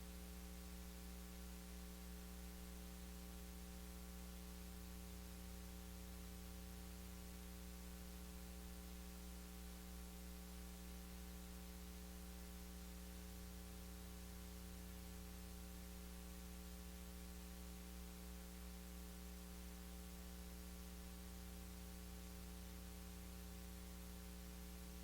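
Steady electrical mains hum with a faint hiss underneath, unchanging throughout, as from the recording or sound-system chain with no programme signal on it.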